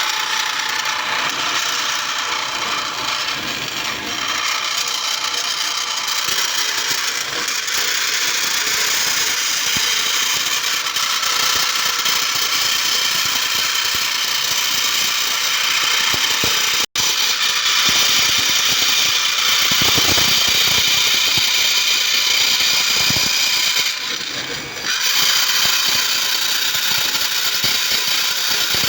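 Vertical band saw running steadily, a continuous rattling machine sound mostly in the upper range. It cuts out for an instant about two-thirds of the way through and dips briefly a few seconds before the end.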